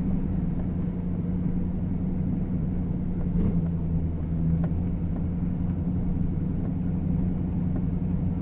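Plow truck's engine running steadily at idle while it pushes snow, a constant low hum, with a couple of faint knocks around the middle.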